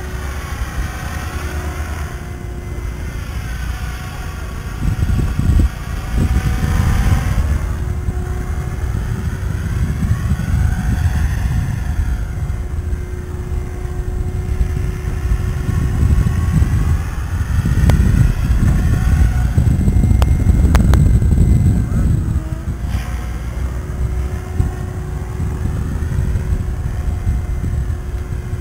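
Radio-controlled model helicopter flying, its rotor and motor whine sliding up and down in pitch as it circles, with gusty wind rumbling on the microphone.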